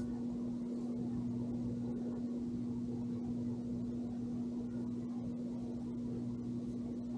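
A steady low electrical hum held at one pitch, with no distinct clicks or knocks.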